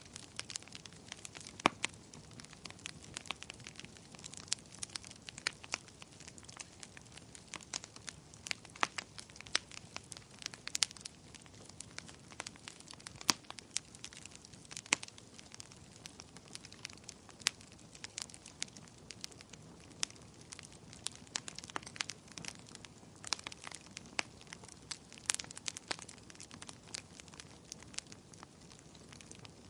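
Campfire burning: wood crackling and popping in sharp, irregular snaps over a soft steady hiss of flames.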